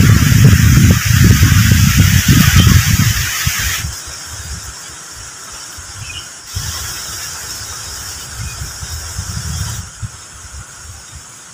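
Wind buffeting the microphone over a steady high hiss, loud for the first four seconds and then cut abruptly to quieter wind noise, with a stronger gust-like stretch about halfway through.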